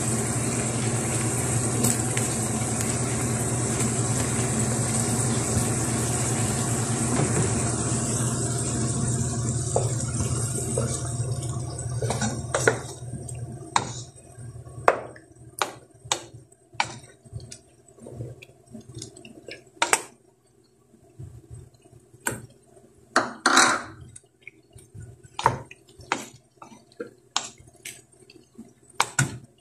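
A wooden spoon knocking and scraping against a nonstick frying pan in a quick, irregular run of sharp knocks as chicken pieces in tomato sauce are stirred. Before the knocks, a steady hiss with a low hum fades out about ten seconds in.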